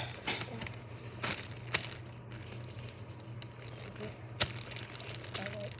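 Plastic bag crinkling in a few scattered sharp crackles while a homemade tape squishy is handled in it, over a steady low hum.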